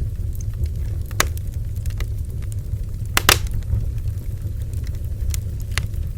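Bonfire burning: a steady low rumble of flames with scattered sharp crackles and pops from the burning wood, the loudest pops about three seconds in.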